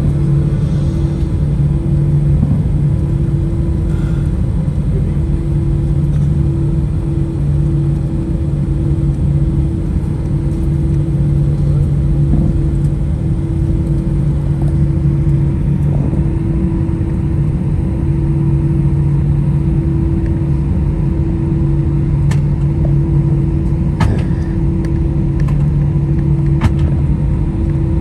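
Steady drone inside an Airbus A320's cabin, its jet engines at idle and the air conditioning running while it taxis for departure, with a constant low hum. A few light clicks come near the end.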